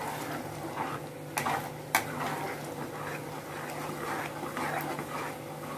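A metal spatula stirring and scraping a thick poppy-seed paste masala around a kadai, with two sharp clicks of the spatula against the pan about one and a half and two seconds in. A steady low hum runs underneath.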